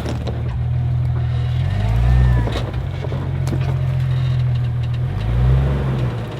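Off-road 4x4's engine idling at low revs while rock crawling, with two short throttle blips, about two seconds in and again about five seconds in.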